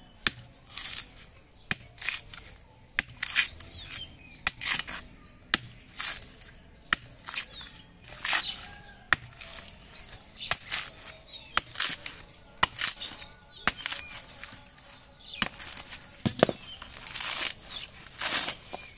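Coconut husk being struck with a large blade and torn apart by hand: repeated sharp knocks and ripping, fibrous tearing sounds, about one a second.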